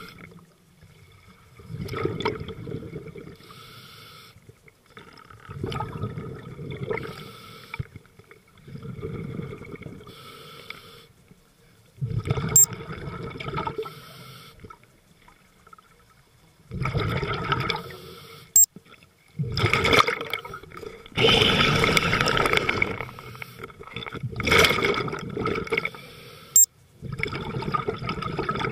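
Scuba diver breathing underwater through a regulator: a rush of air and bubbles with each breath, repeating every few seconds.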